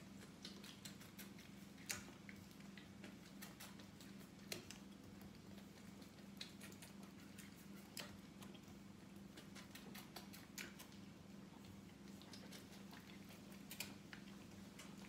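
Goat kid suckling from a feeding bottle: faint, irregular wet clicks and smacks from the teat, a few of them sharper and louder, over a steady low hum.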